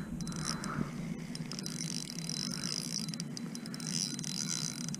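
Spinning reel being cranked steadily, its gears whirring, as a hooked fish is reeled in.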